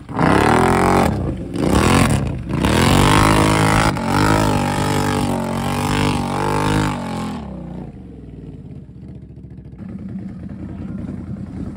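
Can-Am Outlander XMR 1000R's V-twin engine revved hard in repeated surges, rising and falling, as the ATV sits stuck in deep mud with its wheels spinning and throwing mud. About seven seconds in, it drops back to a steady idle.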